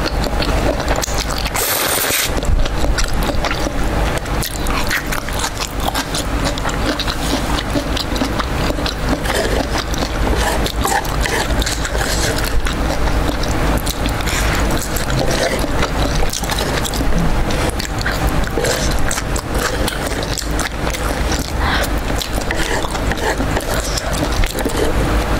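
Close-miked mukbang eating: jjajangmyeon noodles slurped and chewed, a continuous run of wet mouth smacks and clicks.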